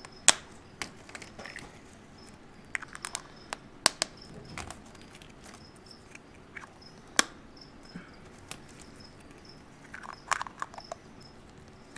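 Hollow plastic eggs being opened and snapped shut by hand, sharp plastic clicks every second or so with small clusters of clicks, and a faint rustle of paper slips.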